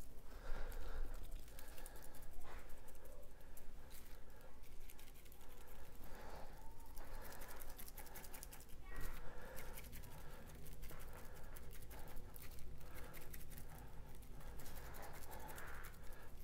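Heavy breathing close to the microphone, with the rapid rattling patter of a seasoning shaker being shaken over the ribs.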